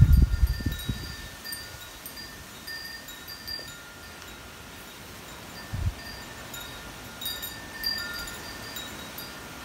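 Wind chimes ringing in the breeze, several clear metal tones sounding and fading over and over. Gusts of wind rumble on the microphone at the start and again about six seconds in.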